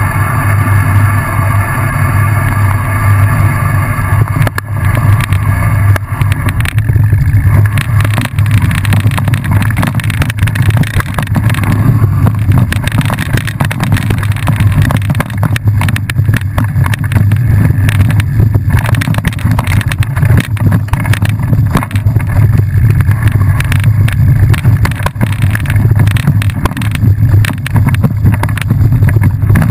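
Wind buffeting the camera microphone at riding speed, with a continuous low rumble and irregular rattles and knocks from a bike running over a rough dirt trail.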